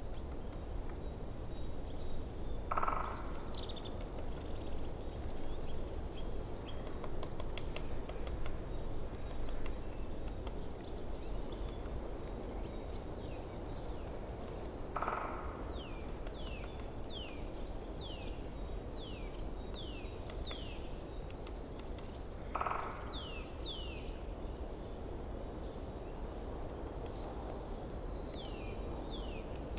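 Forest stream running steadily, with birds singing over it: high chirps in the first half, then a run of short falling notes about twice a second. Three short, lower calls come several seconds apart.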